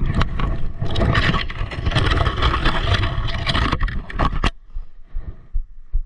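Someone pushing on foot through dry brush and leaves, a dense crunching and scraping that stops suddenly about four and a half seconds in, leaving a few faint footfalls.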